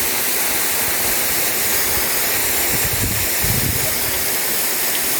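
Waterfall rushing close by: a steady, dense hiss of falling water, with a few low thumps about three seconds in.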